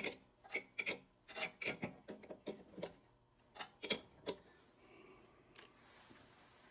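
Small clicks and scrapes of a 3/8 air hose fitting being handled and worked onto the hose, a few irregular clicks a second for about four seconds, then quiet.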